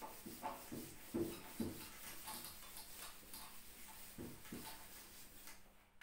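Whiteboard eraser rubbing marker writing off a whiteboard in repeated wiping strokes.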